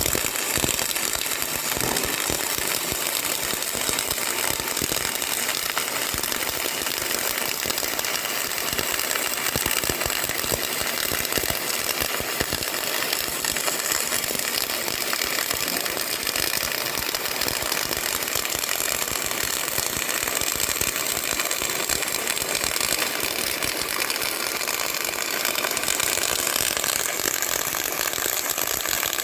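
CO2 (MIG/MAG) welding arc burning steadily, with a continuous, even, rapid crackle.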